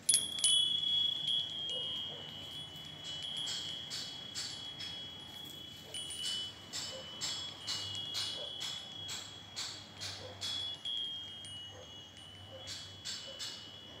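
Wind chime ringing in the breeze: the strongest strike comes right at the start, then many irregular strikes follow over high, lingering tones. The strikes thin out and fade near the end.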